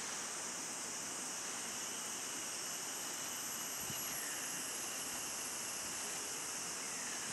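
Steady, high-pitched drone of forest insects, unbroken and even in level.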